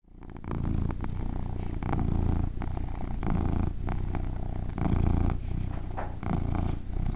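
A cat purring close up, the low purr swelling and easing with each breath, about once every second and a half.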